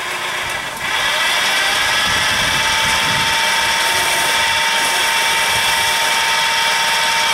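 Homemade electric outboard motor built from an angle grinder, running out of the water with its propeller spinning in air. It gets louder about a second in, then holds a steady high whine.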